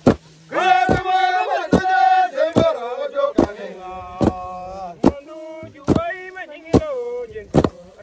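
Wooden threshing clubs striking harvested grain on the ground together, a sharp thud a little more often than once a second, with men's voices chanting between the strokes.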